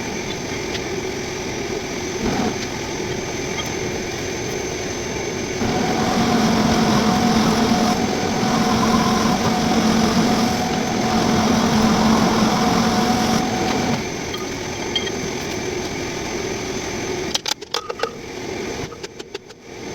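Metal lathe running while a large boring bar cuts the bore of a roller: a steady machine hum with a cutting tone that is louder for several seconds in the middle. Near the end the sound drops out in short, choppy gaps.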